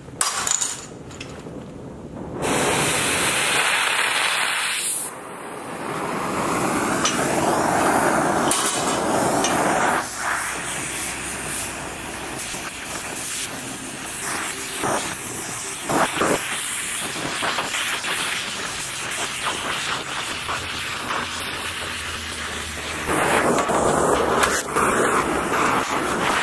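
Oxy-fuel torch flame hissing steadily as it heats a steel threaded rod for bending around a pipe. The hiss is louder and brighter for a few seconds near the start, and there are a few short metallic knocks about halfway through.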